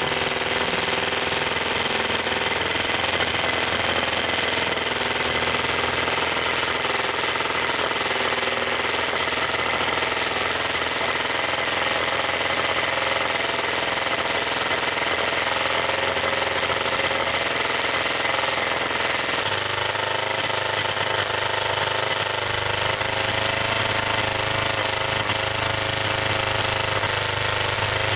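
Microcosm M12 miniature single-cylinder gas engine running steadily after tuning, with a deeper low note coming in about two-thirds of the way through.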